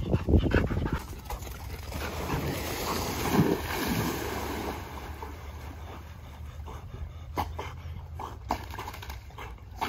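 Two Labrador retrievers splashing into a pond, a burst of churning water that dies down to quieter lapping as they swim off. A few loud thumps come in the first second.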